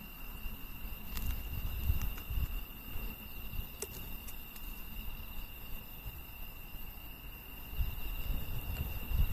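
Insects trilling steadily in the background, with a few sharp clicks and irregular low rumbling.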